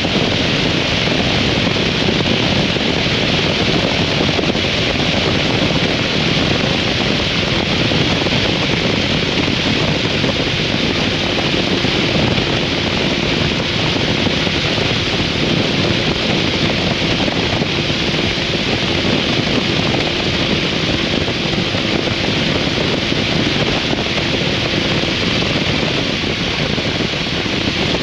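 Wind rushing over the microphone, mixed with road and engine noise from a 2003 Harley-Davidson V-Rod's liquid-cooled Revolution V-twin cruising at a steady speed. There is no revving or gear change; the level and pitch hold steady throughout.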